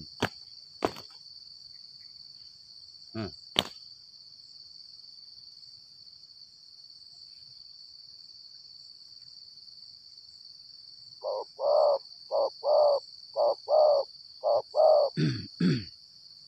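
Steady high buzz of insects, with a few sharp clicks in the first few seconds. From about eleven seconds in, a spotted dove coos in a run of short notes, mostly in pairs, louder than everything else.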